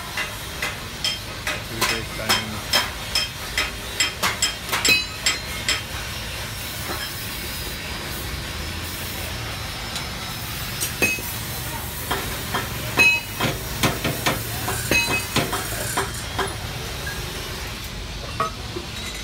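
Metal tool knocking on a steel-tube luggage carrier: a run of sharp, ringing clanks about two or three a second. A steady hiss comes in for a few seconds, then another flurry of clanks.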